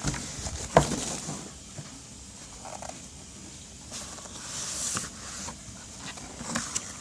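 Cardboard packaging being handled and pulled open: rustling and scraping, with a sharp knock about a second in.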